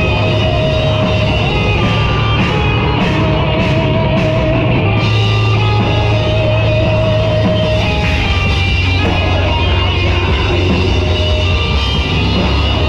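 Live rock band playing loud: distorted electric guitar holding long, wavering notes over bass guitar and drums, with cymbal crashes.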